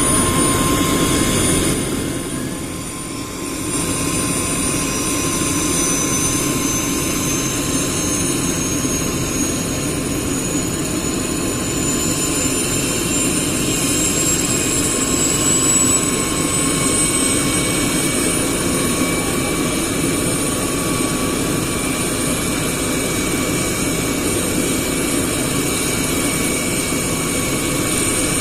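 Helicopter turbine engine and rotor running steadily, with a high whine that slowly rises in pitch and a dip in level about three seconds in.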